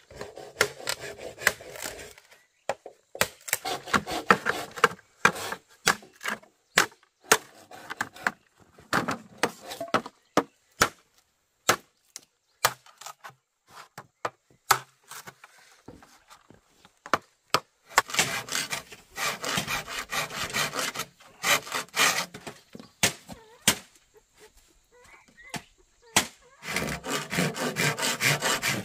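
Wood being worked by hand: a string of sharp knocks and chops, broken by several longer stretches of quick rasping strokes like sawing or scraping.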